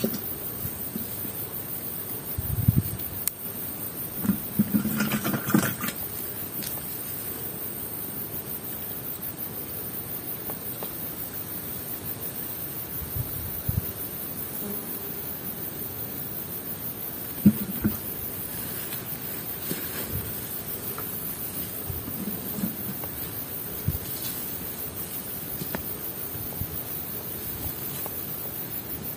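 Hands working a fine nylon gill net in grass as fish are picked out: scattered soft rustles and light knocks, with a cluster in the first few seconds and a sharper tap about a third of the way in, over a steady high hiss.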